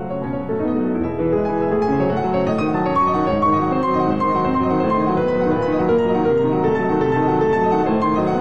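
Piano music, many notes sounding together in a steady, flowing passage.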